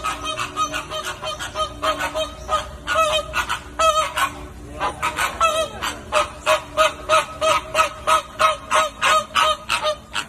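A flock of large birds honking in quick succession, about four calls a second, with a short break about halfway through.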